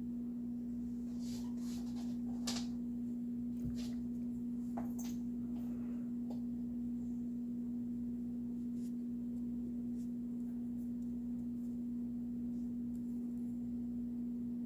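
A steady low hum at one unchanging pitch, with a few faint soft clicks in the first few seconds.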